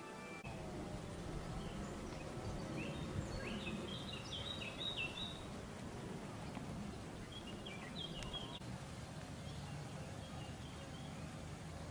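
Outdoor ambience with a steady background hiss and small birds chirping, in a cluster a few seconds in and again around eight seconds. The ringing of a church bell cuts off at the very start.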